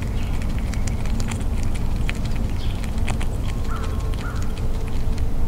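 Eastern gray squirrel chewing a peanut right at the microphone: quick, irregular crunching clicks over a steady low rumble.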